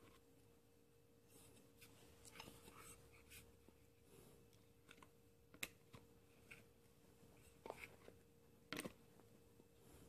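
Near silence: a few faint clicks and rustles of small plastic and rubber parts handled in the hand, over a faint steady hum.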